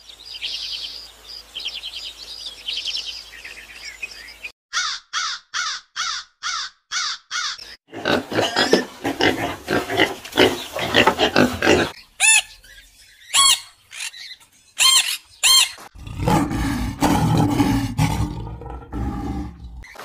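A run of different animal calls, one after another: high chirping, then a series of about seven evenly spaced calls, then pigs squealing and grunting for a few seconds midway, followed by sharp high chirps and low grunting near the end.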